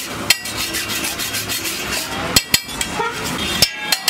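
Metal spatula scraping and tapping on a flat iron griddle, with a few sharp ringing knocks: about a third of a second in, two close together past the middle, and one more near the end.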